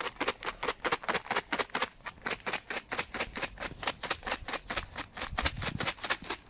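A plastic Dreamies Mega Tub of dry cat treats being shaken in a steady rhythm, the treats rattling against the tub about six or seven times a second.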